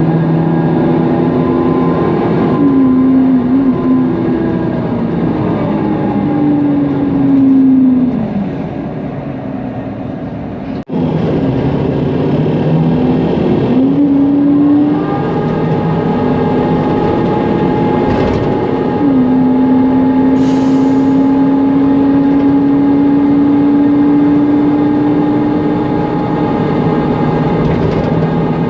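On board a Mercedes-Benz Conecto NG T city bus running on compressed natural gas. The OM 936 G engine and driveline whine fall in pitch as the bus slows to a quieter, near-idle spell about eight seconds in, then rise again as it pulls away and cruises. Under this runs the steady hum of its loud cooling fan, and there is a momentary break in the sound near the middle.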